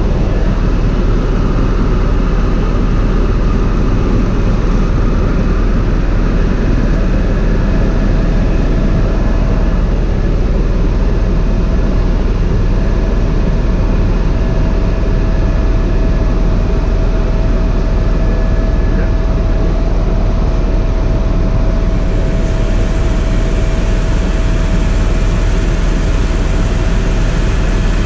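Helicopter in flight heard from inside the cabin: a steady, loud drone of rotor and engine with a constant whine running through it.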